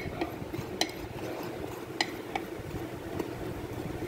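A metal spoon stirring dry ground spices on a ceramic plate: a steady scraping with a handful of sharp clinks of the spoon against the plate.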